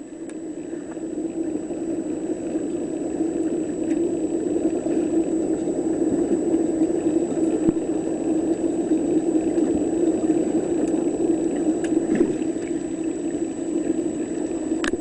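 Small electric thruster motors of a SeaPerch underwater robot running, picked up by a submerged microphone as a steady humming drone that grows louder over the first couple of seconds.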